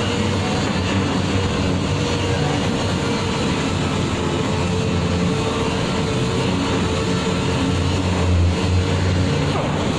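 Orbital sander running steadily while dry-sanding car body paint, a constant motor hum with a steady whine over the grinding hiss of abrasive on the panel; the low hum swells briefly near the end.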